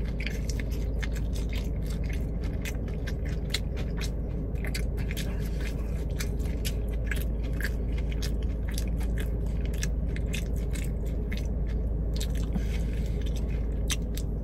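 A person chewing and biting into a bone-in chicken wing close to the microphone, with many short crunchy clicks over a steady low hum.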